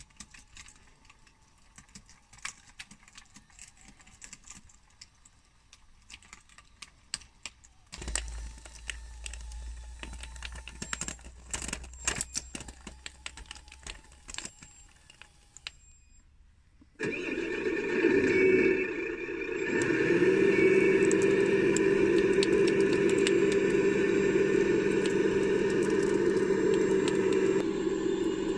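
Scattered quiet clicks and ticks. Then, about two thirds of the way through, the RC excavator's sound kit starts up suddenly and plays a diesel engine starting through a small speaker, which settles into a steady idle hum.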